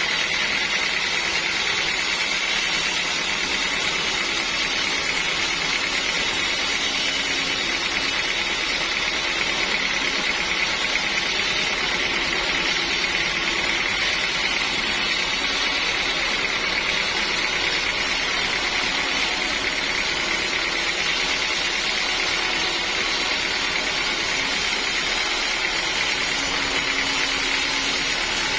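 Sawmill machinery running steadily: an even mechanical noise with a constant high whine.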